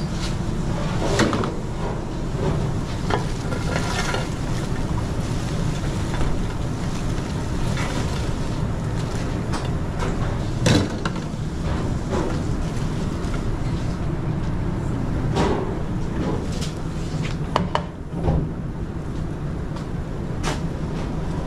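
Busy restaurant kitchen: a steady low drone with scattered clatters and knocks of pans and utensils, the sharpest about eleven seconds in.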